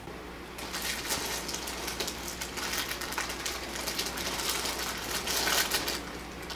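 Crinkling and rustling of a plastic snack wrapper being handled, a dense crackle of small clicks that stops suddenly near the end.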